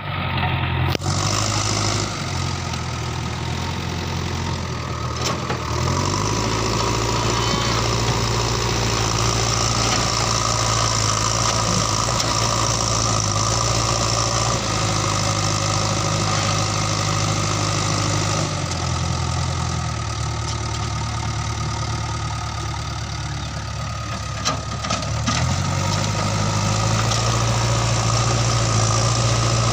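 JCB backhoe loader's diesel engine running steadily. Its speed drops back around 2 seconds in and again past the middle, then rises each time a few seconds later.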